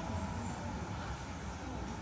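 Steady low rumble of a vehicle running, under an even wash of street noise.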